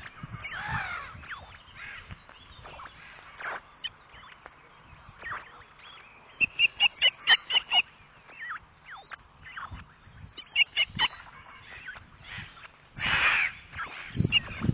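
Osprey calling: a quick run of about eight short, clear whistled calls, then three more a few seconds later. Brief chirps are scattered through, and there is a short rush of noise near the end.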